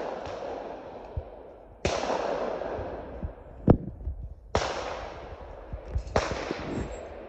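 Shotgun shots at clay targets: four reports a second or two apart, each trailing off in a long rolling echo, the second one the sharpest.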